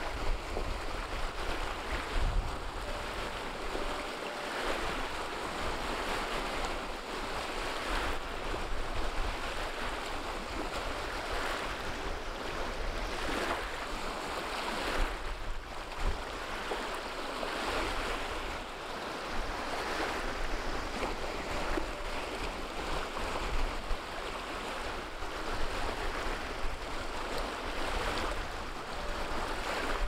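Small wind-driven waves splashing and washing onto a pebble shore in repeated surges, with gusty wind rumbling on the microphone.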